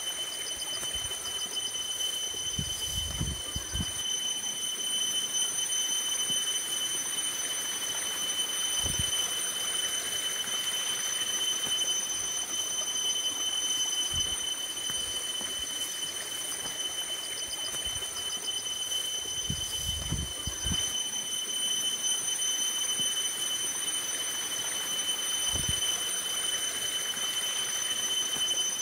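Water splashing and trickling in a plastic basin as a woman washes by hand. Over it runs a steady high-pitched whine, with a few soft low thumps.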